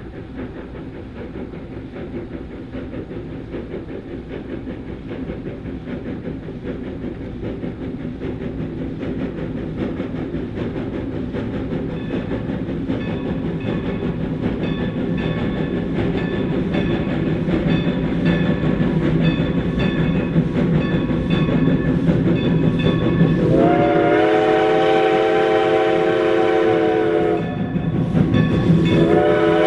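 Baldwin 2-8-0 steam locomotive approaching, its running sound growing steadily louder. About two-thirds of the way in it blows one long chord on its steam whistle, then starts a second blast near the end.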